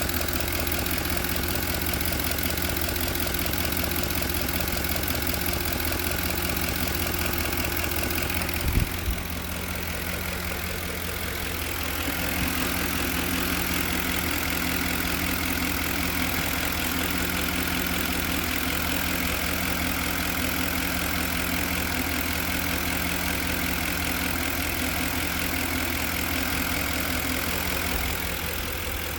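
2010 Ford F-150's V8 engine idling steadily with a repeating knock from the engine. Two short sharp thumps stand out about nine seconds in.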